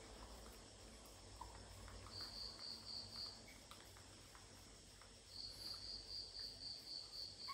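Faint insect chirping: a high, pulsed trill of about four pulses a second, heard for about a second starting two seconds in and again steadily from about five seconds in. A few faint soft ticks come and go beneath it.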